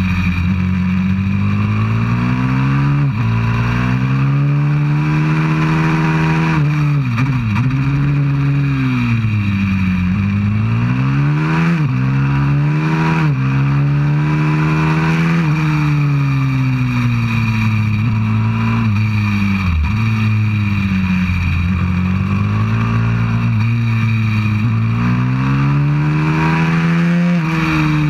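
190cc four-stroke single-cylinder pit bike engine at racing speed, revving up through the gears with a sudden drop in pitch at each gear change and dipping when the throttle is closed for corners, then pulling hard again.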